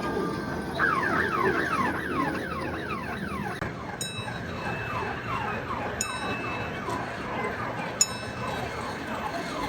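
Electronic siren-like sound effect: rapid falling tones repeating about three times a second, with a short ringing ding every two seconds from about four seconds in.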